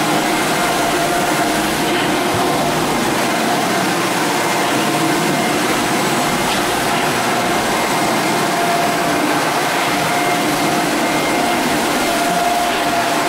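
Electric floor sanding machine running steadily as it screens a hardwood floor: a constant motor hum with a held tone over the hiss of sanding.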